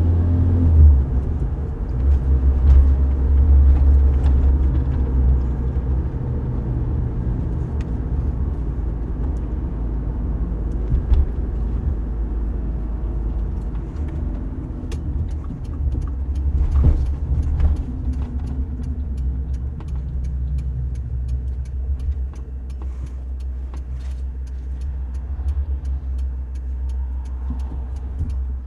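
A car driving at a steady pace, with a continuous low engine and road rumble. Scattered light clicks and knocks come in during the second half.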